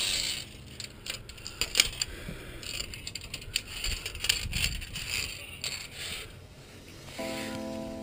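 Via ferrata gear being handled: steel carabiners clicking and scraping on the steel safety cable and rock, with scattered sharp metal clinks and rustling. Soft background music comes in near the end.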